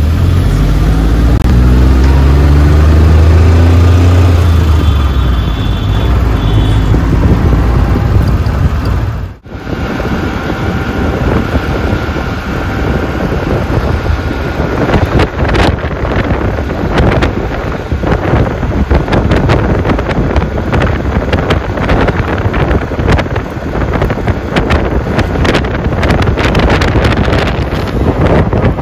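City road traffic heard from a moving rickshaw: a nearby vehicle engine rising in pitch as it speeds up over the first few seconds. After a brief break about nine seconds in, wind buffets the microphone over the traffic noise, with a rough crackling.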